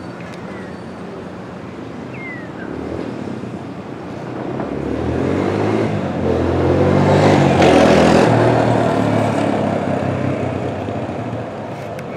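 A motor vehicle passing by: its engine hum swells over several seconds, is loudest about eight seconds in, then fades away.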